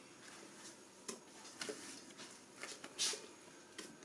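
Faint scraping and squelching of a silicone spatula pushing whipped cream out of a stainless-steel bowl into a batter, with a few light taps of the spatula on the metal, the clearest about three seconds in.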